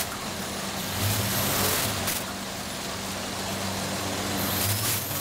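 Running vertical packaging machines on a factory floor: a steady machine hum and din, with two louder hissing surges, about a second in and again near the end.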